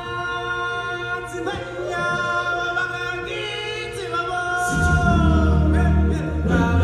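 Stage-show singers hold long notes in a choir-like chant, the pitch stepping and sliding between held notes. A deep bass comes in about five seconds in.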